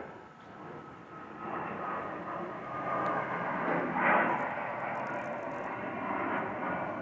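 Distant engine noise, a steady rush that swells about a second and a half in and is loudest around four seconds in.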